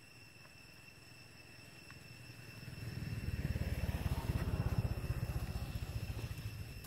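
Low, pulsing engine rumble of a passing motor vehicle, likely a motorbike. It swells up about halfway through, is loudest just past the middle, then eases off a little.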